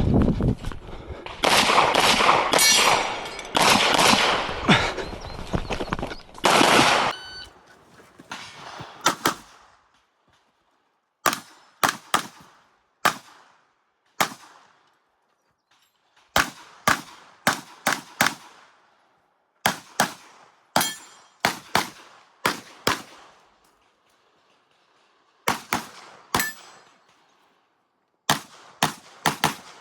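Pistol shots fired during a practical-shooting stage. They come in a fast, dense string for about the first seven seconds, then in spaced groups of two to four quick shots with short pauses between. Each shot has a brief ringing tail.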